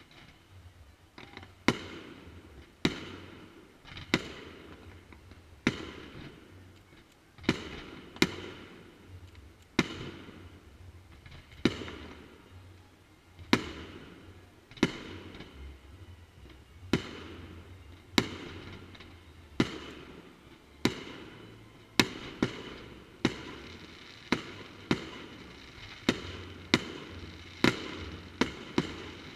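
Fireworks display: aerial shells bursting one after another, a sharp bang about every second, with crackle and echo trailing each burst. The bangs begin about a second in.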